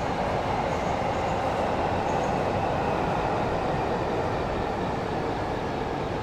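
A train running past on the rails: a steady rumble that is loudest early on and eases off toward the end.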